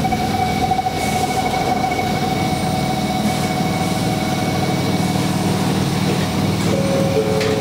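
Electric train car heard from inside, its running gear rumbling low under a steady high squeal that sets in at the start. A second, lower squeal joins near the end.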